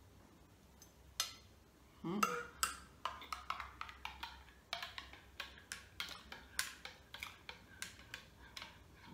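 Metal teaspoon stirring a mug of vanilla cappuccino, clinking against the inside of the mug in quick strokes, about four a second, from about three seconds in. Just before, there is a single click and a short vocal sound rising in pitch.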